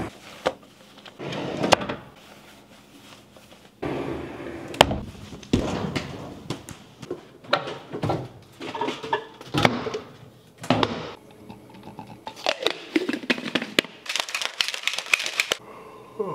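Household handling noises: a closet door sliding and clothes rustling, then kitchen cabinet doors and sharp knocks of things handled and set down on a stone counter. There is a denser run of quick rustling strokes near the end.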